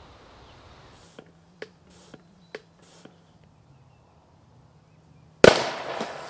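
Homemade 4-inch PVC vacuum cannon firing: a mallet breaks its aluminium-foil burst disc, and one sudden, very loud bang goes off about five and a half seconds in, dying away over about a second as the 3-inch PVC end cap is driven out. Before it, a few light knocks.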